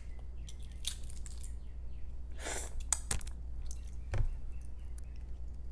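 Soft clicks of eggshell and a brief mouth noise while a balut (boiled duck egg) is handled and eaten, over a low steady hum.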